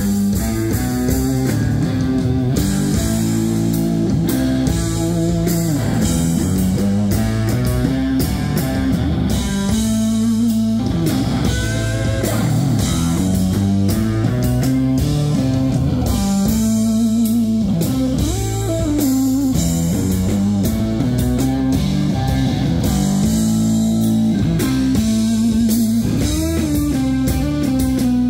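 Rock band playing live: electric guitar over drums in an instrumental passage with no singing.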